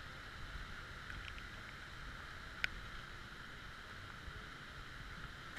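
Steady rush of flowing water, with a single sharp click about halfway through.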